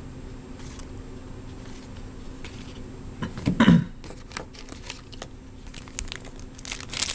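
Baseball card pack and cards being handled: soft rustling, a louder thump about three and a half seconds in, then crinkling and clicking of the pack wrapper that grows busier toward the end.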